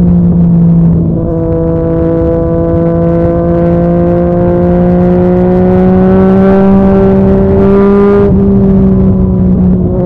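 Yamaha MT-09's inline three-cylinder engine running under load through a Yoshimura R55 slip-on exhaust. The engine note steps down about a second in, climbs slowly and steadily for several seconds, then steps down again near the end.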